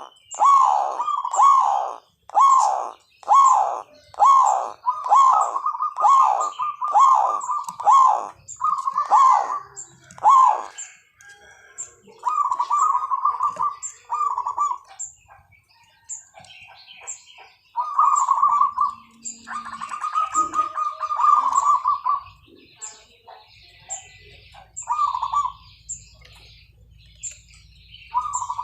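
Zebra doves (perkutut) calling. First comes a quick series of short coos, then from about halfway longer rolling, trilled coos, the 'kuwor' and 'kerot' calls, with small birds chirping high above them.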